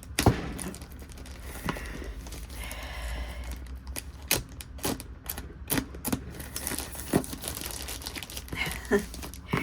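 Packing material being unwrapped by hand: crinkling and tearing with scattered sharp clicks and rustles.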